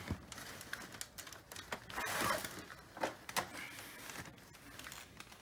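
Scattered light knocks and clicks from a Panasonic NV-870 VCR with its cover off being handled and turned around on a surface, with a brief scraping sound about two seconds in.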